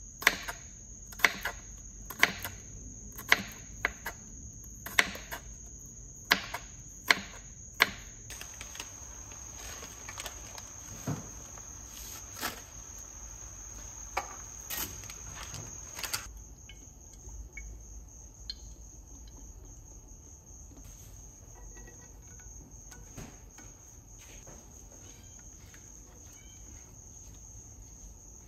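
Kitchen knife chopping garlic cloves on a wooden cutting board: sharp knocks about once a second for the first eight seconds, then a few scattered, fainter knocks. A steady high-pitched tone runs underneath throughout.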